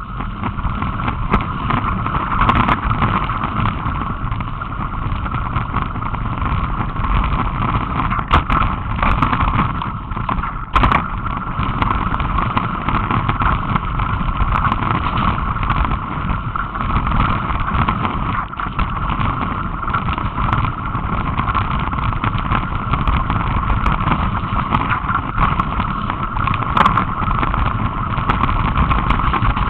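Continuous riding noise from a mountain bike on a gravel trail: a steady rushing rumble of tyres and wind on the camera microphone, with occasional sharp knocks from bumps.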